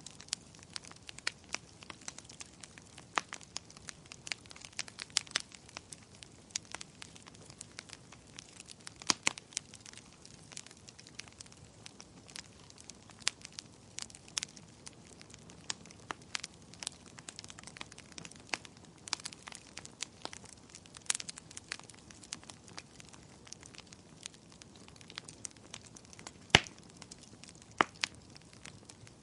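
Wood fire crackling and popping in a fireplace: irregular sharp snaps over a faint steady hiss, with one louder pop near the end.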